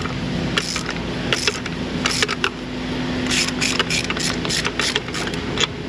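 Pittsburgh hand ratchet on an extension clicking in short, irregular bursts as it backs out a spark plug. A steady hum runs underneath.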